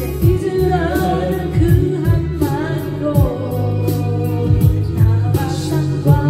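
Karaoke singing: a voice sung into a karaoke microphone over a Korean pop ballad backing track, with a drum beat and sustained accompaniment.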